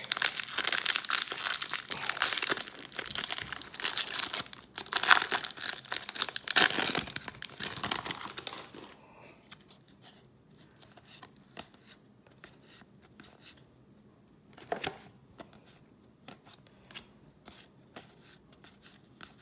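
Wrapper of a jumbo pack of baseball trading cards being torn open and crinkled, loud and continuous for about nine seconds. After that it goes much quieter, with only faint scattered ticks.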